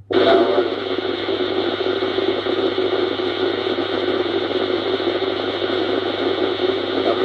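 CB radio on FM receiving an open transmission that carries only a steady, loud buzzing hiss and no voice, starting and cutting off abruptly as the other station keys and unkeys. The listener takes this for a faulty microphone wire at the transmitting station.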